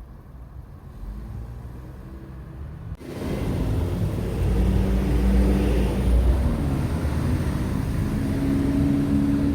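Road vehicle engine running close by: a low rumble with a steady hum, coming in suddenly about three seconds in after faint background noise.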